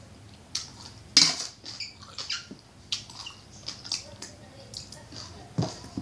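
Close-miked eating sounds: slurping spoonfuls of spicy papaya-salad broth and chewing, heard as short separate bursts. The loudest comes about a second in.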